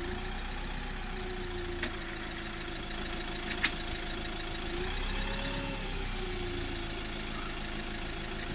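Chausson motorhome's diesel engine idling steadily while the vehicle stands parked. A faint click comes about two seconds in and a sharper click a little under four seconds in.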